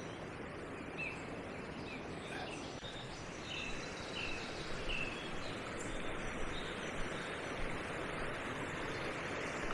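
Brook water running over stones, a steady rushing hiss that grows a little louder about halfway, with a small bird giving short, high chirps several times in the first half.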